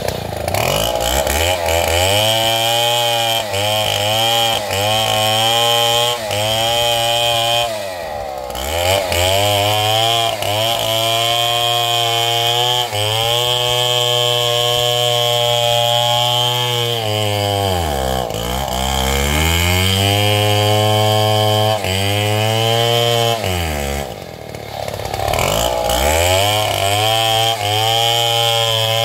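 Stihl MS 070 two-stroke chainsaw running at high revs through a cut, its pitch held high for long stretches and dropping to low revs and revving back up three times.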